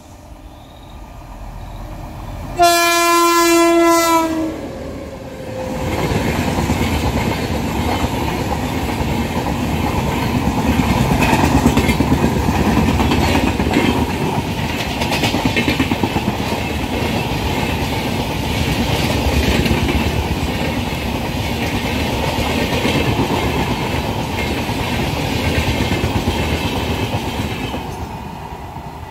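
An Indian Railways locomotive horn sounds once for about a second and a half, ending in a short falling note. Then a long LHB-coach express train passes close by at speed for over twenty seconds, a steady rail rumble with wheel clatter that fades near the end.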